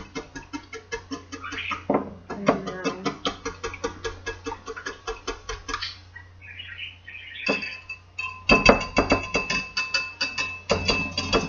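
A fork beating egg and coconut milk in a bowl: fast, even clicking against the bowl's side, pausing briefly past the middle and then going on with a light ringing.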